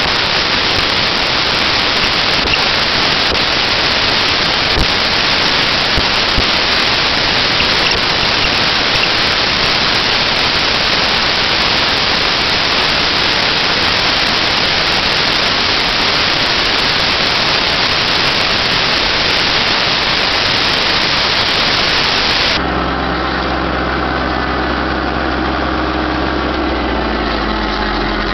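Tractor and PZ MH 80 one-row forage harvester working in standing maize: a loud, steady, even roar. About 22 seconds in it cuts to the tractor engine running steadily at an even pitch.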